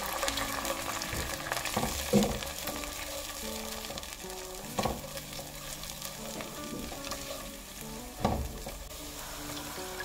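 Thickening sauce of cornflour slurry, garlic and spring onion sizzling in a hot nonstick pan while it is stirred with a silicone spatula. The spatula knocks or scrapes against the pan three times, about 2, 5 and 8 seconds in.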